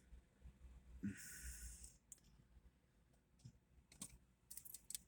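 Near silence: faint background rumble, a brief burst of hiss about a second in, and a few faint clicks near the end.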